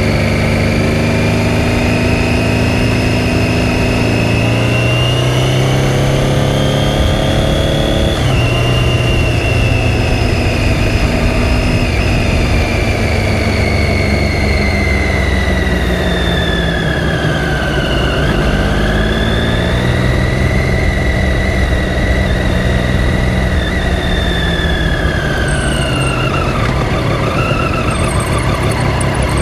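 Triumph Daytona 675's inline-three engine under way: the revs climb slowly, drop suddenly about eight seconds in as it shifts up, then fall and rise again in slow swells with the throttle, easing off toward the end.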